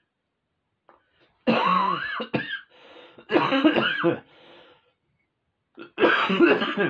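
A man coughing and clearing his throat in three loud, harsh bouts, a smoker's cough right after a drag on a cigarette.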